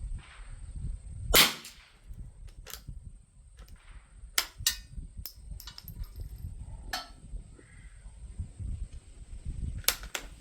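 A single .22 rimfire shot from a Winchester Model 52 bolt-action target rifle, a sharp crack about a second and a half in. After it come several quieter sharp clicks and knocks spread over the following seconds, with a low wind rumble underneath.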